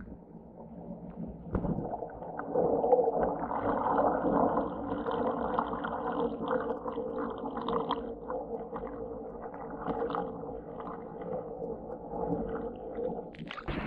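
Muffled underwater sound picked up by a submerged camera: water moving and gurgling, with faint clicks and knocks, building up after the first second or so. Near the end it breaks off abruptly as the camera comes up into open air.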